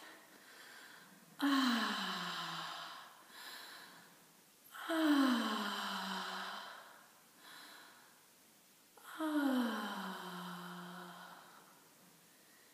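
A woman sighing aloud three times, each long, breathy sigh sliding down in pitch.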